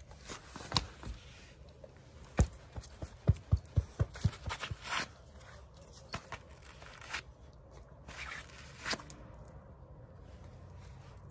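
A hand patting and slapping a dog: single sharp pats near the start, then a quick run of about five slaps a little over three seconds in, with rustling of fur and clothing around them.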